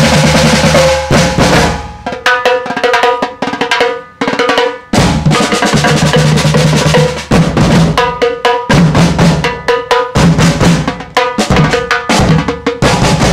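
A drum group playing snare drums and large bass drums together in a fast, driving rhythm, with brief breaks between phrases, the longest about four seconds in.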